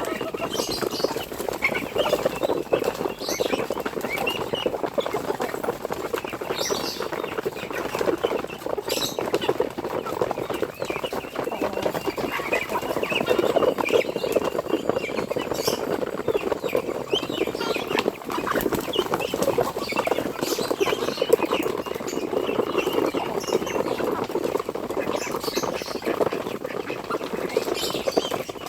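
A large flock of poultry penned together: a dense, steady chatter of many birds with rustling and scratching, and scattered short high peeps.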